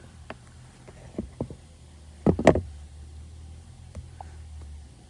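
Light taps and handling knocks, with two louder thumps close together about two and a half seconds in, over a low hum that stops near the end.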